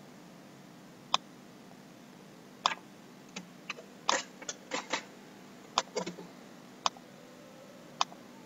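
Computer mouse clicking: single sharp clicks about a second apart, with a quick run of several clicks around the middle.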